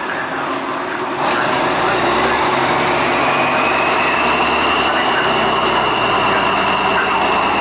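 Tatra 815 8x8 trial truck's diesel engine running under load as the truck crawls through mud, getting louder about a second in, with a thin high whine over it.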